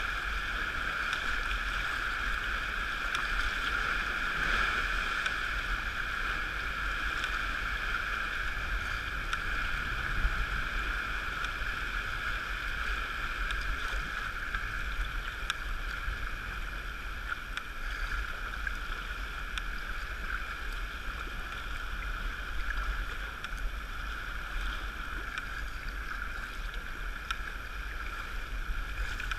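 Sea water sloshing and lapping around a sea kayak's hull as it is paddled through chop, with wind rumbling on the microphone. A steady hiss with a few faint clicks and one sharper tap about ten seconds in.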